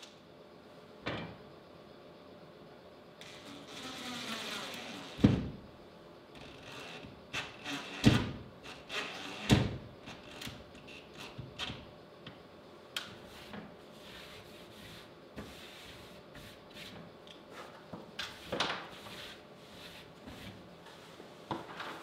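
Knocks, clunks and scraping as a cut-out sign is fitted against a plywood wall by someone working from a stepladder. Three loud knocks come about five, eight and nine and a half seconds in, with a brief falling whine just before the first.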